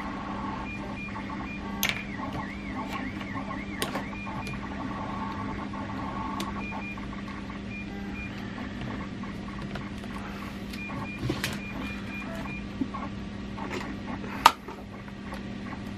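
A few sharp clicks and taps of small plastic battery connectors and parts being handled and set down on a workbench mat, the loudest near the end. Under them runs a steady low hum.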